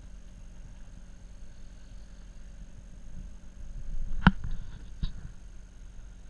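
A plastic-wrapped bigeye tuna being handled on a boat deck: one sharp knock about four seconds in and a weaker one a second later, over a low steady rumble.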